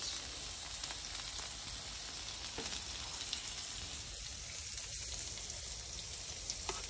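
Smash burger patties and onions sizzling on a hot Blackstone flat-top griddle: a steady frying hiss, with a couple of brief light knocks from a metal spatula.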